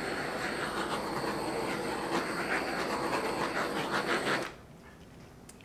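A small electric blower switched on with a click, running with a steady rush for about five seconds, then cut off abruptly.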